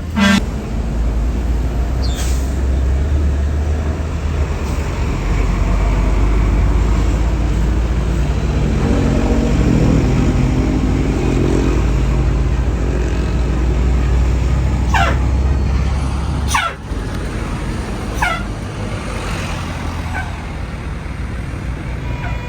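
Heavy diesel engine of a large tour bus running close by: a deep, steady rumble that rises in pitch for a few seconds in the middle and cuts off abruptly about three-quarters of the way through. A sudden loud burst comes right at the start, and a few short sharp hisses or squeaks near the end.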